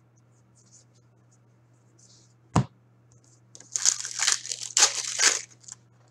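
A single sharp click, then a hockey card pack's foil wrapper being torn open and crinkled for about two seconds.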